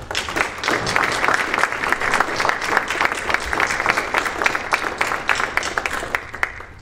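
Audience applauding. The clapping starts suddenly and fades out near the end.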